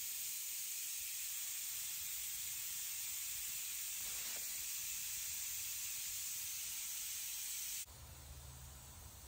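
Steady, even hiss with no other events, dropping suddenly to a quieter hiss with a faint low hum near the end.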